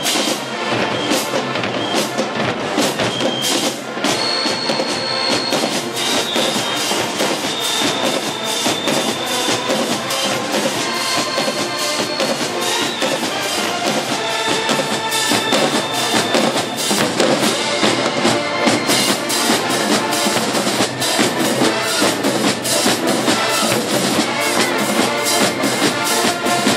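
College marching band playing: brass (trumpets, sousaphones) over a pounding drumline beat with bass drums and snares.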